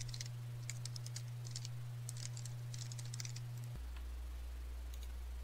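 Typing on a computer keyboard: a quick run of soft key clicks that stops about three and a half seconds in, over a low steady hum.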